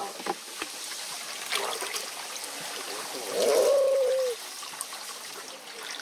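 Stream water trickling steadily, with a few small clicks. About three seconds in, a short voice-like cry lasts about a second, its pitch falling at the end.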